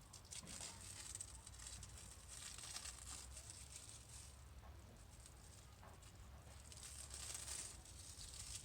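Faint scratchy rustling and rubbing that comes and goes in three bursts, over a low hum.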